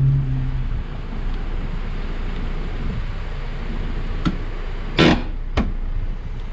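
Hydraulic floor jack being let down under a car: a short knock, then a louder metallic clunk about five seconds in and another knock just after, as the car settles onto its spacer-lifted coil springs. A low steady hum fades out in the first second.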